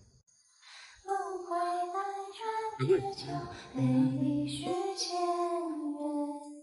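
A high female voice singing a slow melody in long held notes over light backing music, starting about a second in and cutting off abruptly at the end.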